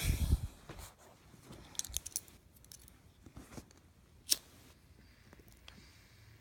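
Handling noise from a phone held close to the microphone: a rumbling bump as it is moved, then a few small sharp clicks and taps, the sharpest a little past four seconds in.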